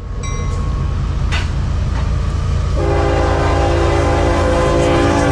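Freight train of tank cars rolling past, a steady low rumble of wheels on rail with a single clank about a second in. About three seconds in a train horn starts sounding a held multi-note chord that sags slightly in pitch near the end.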